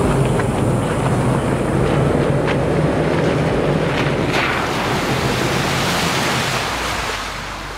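Toyota 4Runner TRD Pro's V6 engine running as the truck approaches. About four seconds in, muddy water surges and sprays as it drives through a large puddle, then the splash eases off.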